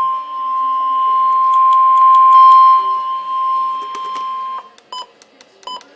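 Emergency Alert System attention tone: one steady high tone that cuts off about four and a half seconds in, followed by three short beeps.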